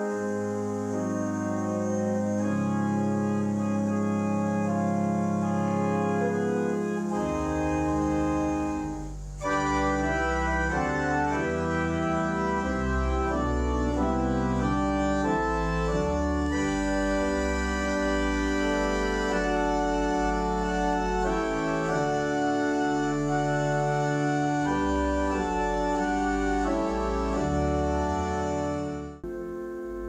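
Pipe organ playing sustained chords, with deep bass pedal notes coming in about seven seconds in. The music breaks off abruptly after about nine seconds and resumes as a fuller passage, which cuts off suddenly near the end.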